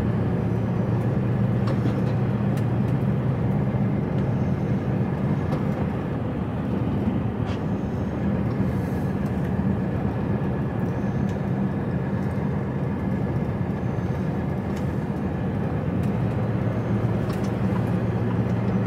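Steady drone of a heavy goods truck's diesel engine and tyre and road noise, heard from inside the cab while cruising along an open road.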